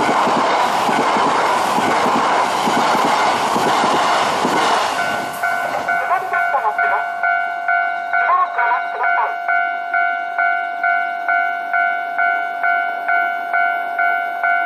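E3-series Yamagata Shinkansen train passing over a level crossing, a loud steady rush that cuts off about five seconds in as the train clears. The crossing's electronic warning bell then rings on alone, a little under two dings a second.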